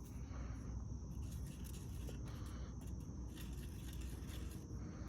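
Quiet background with a steady low hum and a thin, steady high-pitched tone, and a few faint light scrapes.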